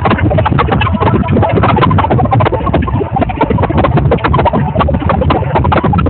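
Large audience applauding: many overlapping claps, steady and loud.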